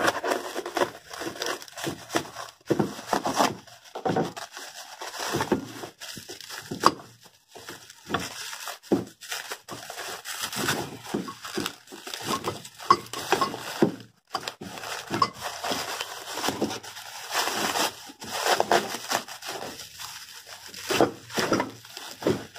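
Plastic stretch wrap and bags crinkling and tearing as hands pull them off packed parts, in irregular crackly bursts.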